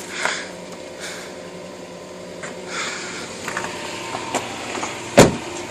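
Subaru Legacy GT's turbocharged flat-four engine idling steadily, heard from inside the car. A single sharp knock comes about five seconds in.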